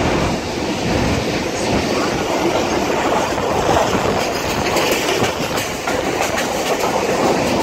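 A moving train, the steady rumble and clatter of its wheels running on the rails.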